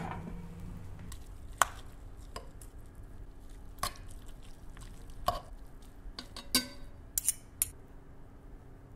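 Metal forks clinking and scraping against a cast-iron Dutch oven as slow-cooked pork is pulled apart: a scattering of sharp clinks a second or so apart, with a few close together near the end.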